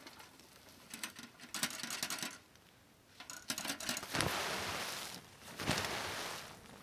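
Handling noise from camping gear: a few sharp clicks and light clinks, a short rustle, then two longer, louder stretches of rustling in the second half.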